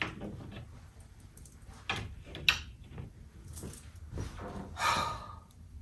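A few sharp clicks and knocks of hard objects being handled and set down, the strongest about two and a half seconds in, with a longer rustle about five seconds in.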